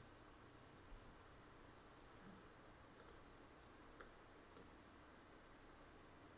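A few faint, sharp computer mouse clicks over near-silent room tone: one about a second in, a quick pair about three seconds in, then two more a second or so later.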